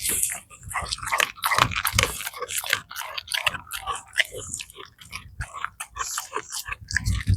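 Rottweiler chewing raw chicken carcass, bones cracking and crunching in quick, irregular bites, with a couple of heavier crunches, one near the end.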